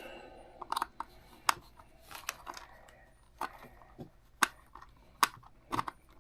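Irregular sharp plastic clicks and taps, about nine or ten in a few seconds, from a small screwdriver being worked on the underside of a small plastic 1/24-scale RC car to open up its bottom.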